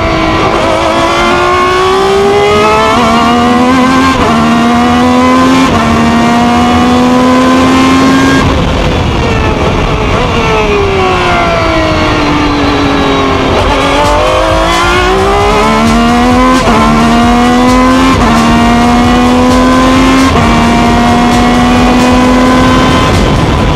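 Ferrari 333 SP's racing V12 engine heard onboard, pulling hard through the gears with several quick upshifts, each a short drop in pitch before it climbs again. About a third of the way in the pitch falls smoothly as the car slows. It then accelerates again through four more upshifts, and the pitch begins to fall once more near the end.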